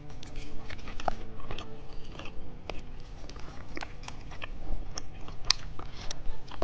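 Close-miked chewing and wet mouth sounds of someone eating a cheese stick snack, with many small sharp clicks and smacks.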